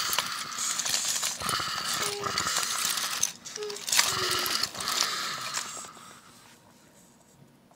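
Small toy-train motor whirring steadily, with short breaks and light clacks of wooden and plastic toy train cars being handled; the whirring stops about six seconds in.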